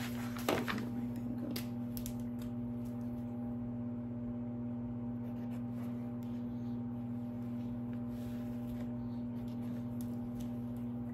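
Quiet tabletop handling of a paper instruction sheet and a marker: a sharp tap about half a second in, then a few faint ticks and rustles, over a steady low electrical hum.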